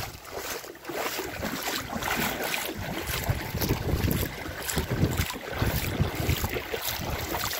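Legs wading through thigh-deep floodwater, sloshing and splashing in an irregular rhythm, with wind buffeting the phone's microphone.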